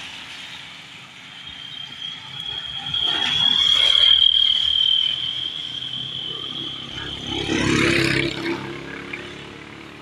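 Vehicles passing on a wet road, with tyre hiss. A motorcycle engine goes by near the end, the loudest moment. A steady high-pitched whine runs through the first half.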